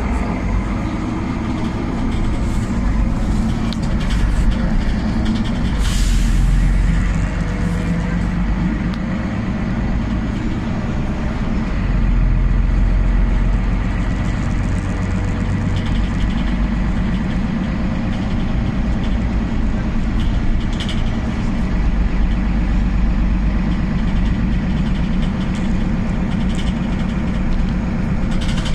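Inside a Solaris Urbino 12 city bus: the engine and drivetrain run steadily under a heavy low rumble of road noise. A short hiss of compressed air comes about six seconds in.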